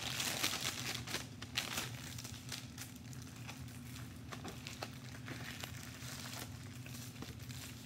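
Clear plastic packaging crinkling as a diamond-painting kit is pulled from its bag and handled, loudest in the first second or so, then lighter rustling with scattered small clicks.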